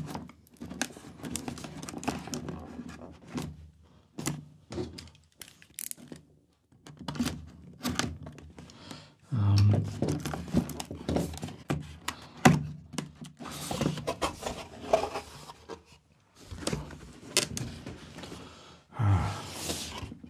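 Cardboard box being handled and opened: packing tape and cardboard rustling and scraping, with scattered thunks and knocks against the table. The box's lid flaps are folded open near the end.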